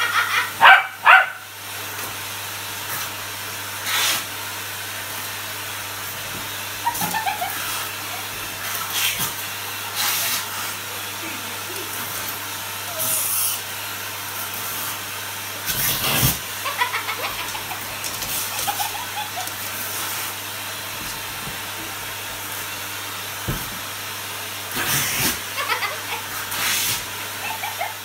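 A vacuum cleaner running with a steady hum and suction hiss, while a dog barks at its wand again and again, loudest twice about a second in.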